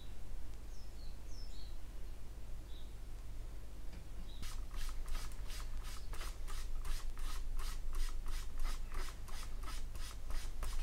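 A hand rubbing back and forth over the plastic wing of a scale model aircraft, wiping and streaking a freshly applied weathering wash. The rubbing starts about four seconds in, in quick, even strokes of about three or four a second.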